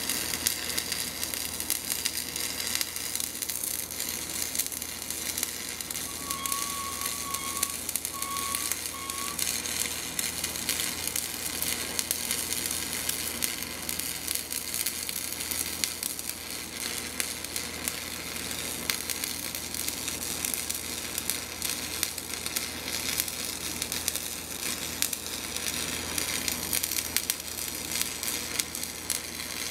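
Electric arc welding on a steel crankshaft: the arc crackles and sizzles steadily as a weld bead is run.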